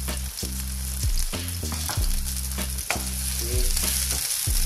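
Halved cherry tomatoes and chopped garlic sizzling in olive oil in a non-stick frying pan. They are stirred, and the utensil scrapes and taps against the pan again and again. A steady low hum runs underneath.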